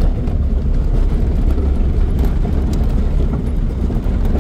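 Steady rumble of a car's engine and tyres heard from inside the cabin while driving on an unpaved dirt road, with a few faint clicks from rattles.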